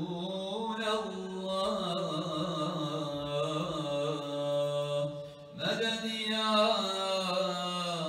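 A man's solo voice chanting unaccompanied in long, ornamented melismatic phrases, with a short breath about five seconds in before the next phrase begins.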